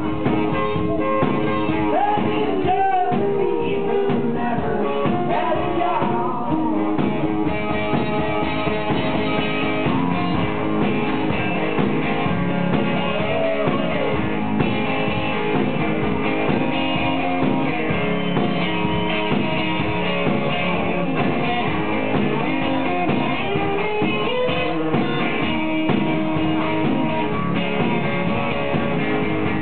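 Live blues song: amplified guitar playing over a steady beat, with a few sliding pitches.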